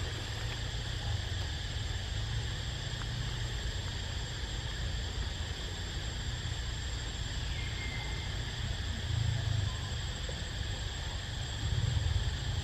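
Steady insect chorus, a constant high shrill drone, with a low rumble underneath that swells about nine seconds in and again near the end.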